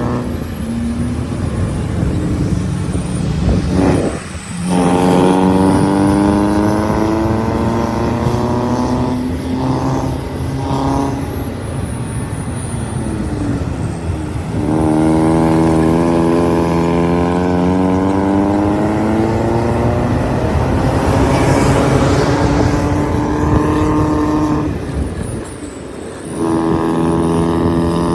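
Diesel vehicle engine pulling under load, its pitch climbing slowly through each gear. There is a break and drop in revs at each gear change, about every ten seconds.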